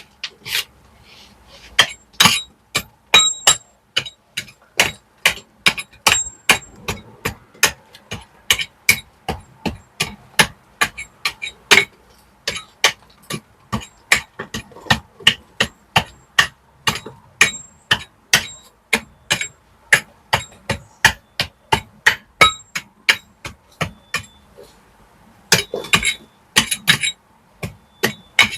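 A hammer striking a steel chisel in a steady run of about three sharp, ringing blows a second, knocking loose old mortar and broken cobble out of brickwork before repointing. Near the end the blows come in a quicker flurry.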